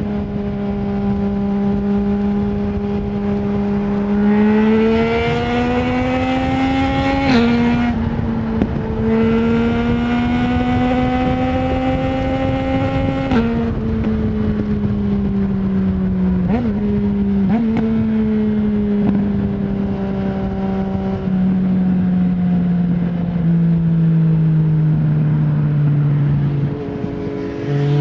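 Yamaha MT-09's three-cylinder engine through an Akrapovic full exhaust without dB killer, heard while riding. It pulls up through the revs twice, each time cut by a sudden drop in pitch as it shifts up. Then it settles and eases off, dropping in pitch in a few steps, with two short blips in between.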